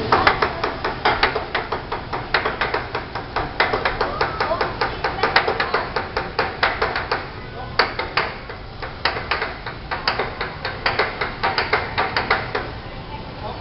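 Teppanyaki chef's metal utensils clacking rapidly against each other and the steel griddle, several quick strikes a second in a rhythmic drumming, with a short break about halfway through.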